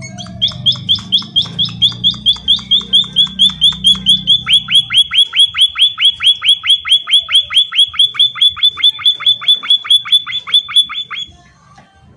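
Emprit (munia) giving a long rapid run of sharp chirps, about five a second, each sweeping down in pitch. About halfway through the chirps become fuller and reach lower, and the run stops suddenly near the end. A low hum sits under the first few seconds.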